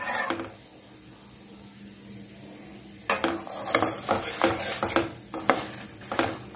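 Perforated steel slotted spoon scraping and clinking against a steel kadai while stirring dried red chillies, cashews and dals frying in oil, over a faint sizzle. The stirring pauses from about half a second in to about three seconds, leaving only the sizzle, then resumes with repeated scrapes.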